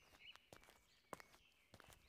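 Faint footsteps sound effect, a few soft, unevenly spaced steps, over faint high chirping in the background.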